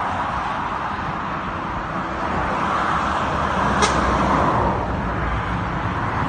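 Dual-carriageway traffic passing below: a steady rush of tyre and engine noise from cars and lorries, rising a little as a car transporter lorry passes close beneath about four seconds in. A brief sharp high sound comes just before it.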